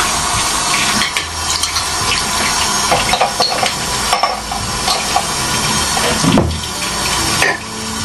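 Water running from a bathroom tap into a ceramic washbasin, with several light clatters as a toothbrush holder and toothbrushes are handled and set down.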